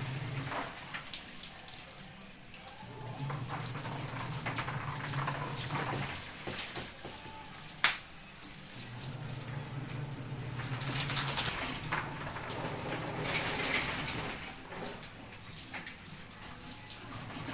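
Water spraying from a hose onto a dog and the metal bars of its cage, a steady splashing hiss, with two sharp knocks partway through.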